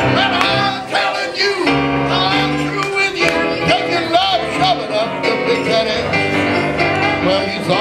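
A man singing a country song live, accompanied by piano.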